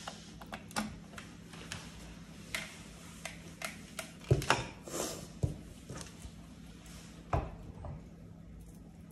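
Scattered light clicks and knocks of speaker cables and plastic connectors being handled and plugged in on a tabletop, loudest about four and a half seconds in and again near seven and a half seconds, over a faint steady hum.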